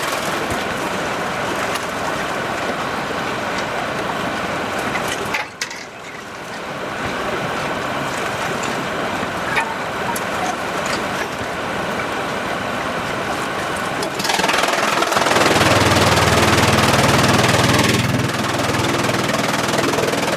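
Sawmill machinery running steadily, with a brief dip about five seconds in and a louder stretch with a low hum near the end, like a saw or engine under load.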